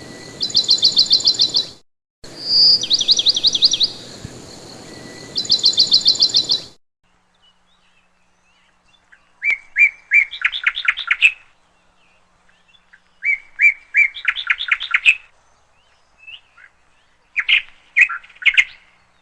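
Songbird singing in repeated rapid trills over a background hiss, then, after it cuts out, three clean song phrases, each opening with a few separate notes and running into a fast trill.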